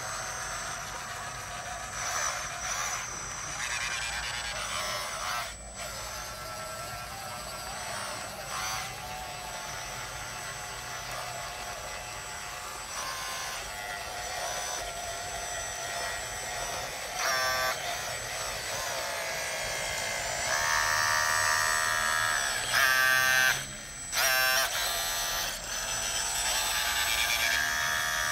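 Whine of a radio-controlled model bulldozer's small electric motors, with the pitch rising and falling as it drives and pushes soil. The loudest stretch, with a stronger, pitched whine, comes about two-thirds of the way in.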